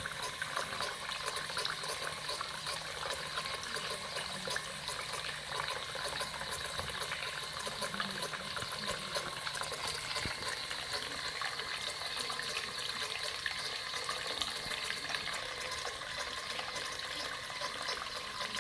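Water trickling and splashing steadily down a small tabletop cement waterfall fountain.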